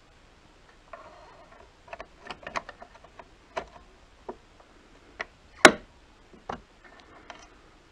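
Mercedes W212 side mirror glass being pried and pulled from its plastic mount: a run of irregular sharp plastic clicks and ticks with faint glove rustle between them. The loudest is one sharp snap about two-thirds of the way through.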